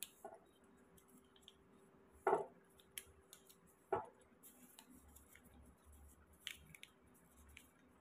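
Notebook paper handled, folded and creased by hand, giving a few short, sharp crackles and taps; the loudest comes about two seconds in.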